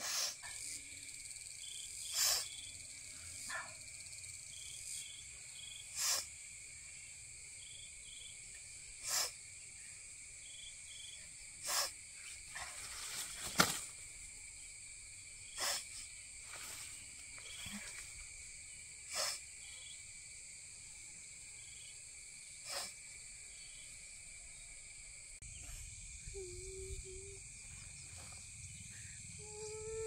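A steady, high-pitched insect chorus runs throughout. About eight sharp knocks, one every three to four seconds, are the loudest sounds.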